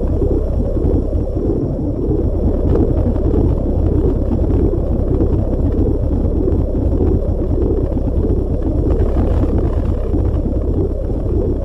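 Space-probe recording of electromagnetic plasma waves from the solar wind striking a planet's magnetosphere, converted into audio: a loud, steady, dense low noise with no pauses.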